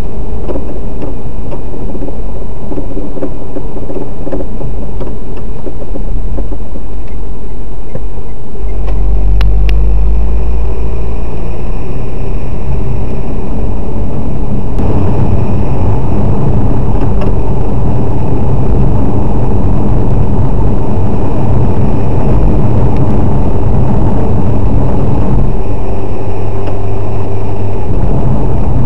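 Steady engine and road noise of a new Renault Duster on the move, with a recurring creak from somewhere in the car whose cause the owner cannot trace. The rumble grows heavier about halfway through.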